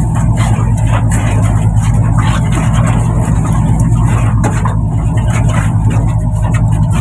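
Fishing boat's engine droning steadily at a constant pitch, with scattered knocks and clatter of squid and plastic crates being handled on deck.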